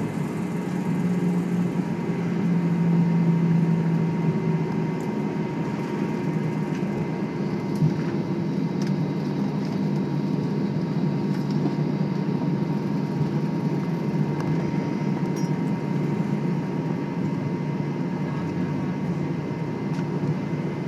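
Steady cabin noise of an Airbus A320 taxiing after landing: a low hum of the engines at taxi power and the air conditioning, with a faint high steady tone. The low hum swells for a few seconds early on, and there is a single short knock about eight seconds in.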